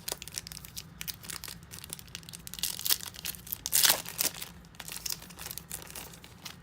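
Foil wrapper of a trading card pack crinkling and tearing as it is ripped open, with many short crackles and the loudest rip about four seconds in.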